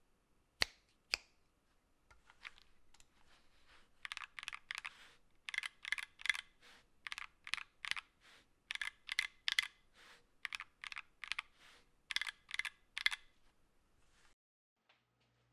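Mechanical keyboard with Gateron Ink Black switches, keys pressed one after another at about two a second. Two sharper clicks come near the start.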